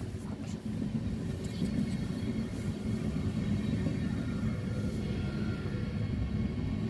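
Siemens Desiro HC double-deck electric multiple unit pulling out and running past: a steady low rumble of wheels and running gear with a faint steady whine above it, growing slowly louder.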